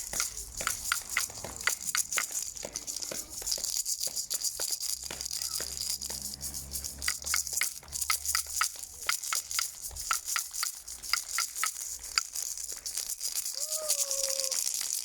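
Crowd of neighbours clapping: many sharp, close claps over a dense spread of applause from along the street, some strikes ringing briefly like banged pots. A short call rises out of it near the end.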